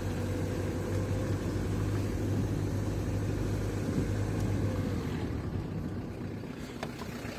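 A vehicle's engine running with a steady low hum that drops away a little after about five seconds, with a couple of faint clicks near the end.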